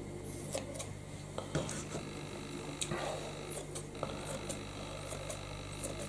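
Kitchen scissors snipping through raw steak, a series of short sharp clicks of the blades closing at irregular intervals, over a steady low hum.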